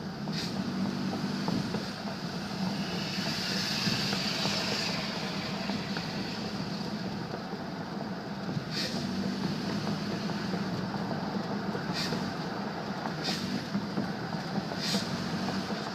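2000 Nissan Xterra running under way, with a steady engine and road drone. About three to five seconds in, a raspy metallic grinding rises over it, and a few short sharp ticks come later. The grinding comes from the exhaust pipe's rusted heat shield, which had broken loose.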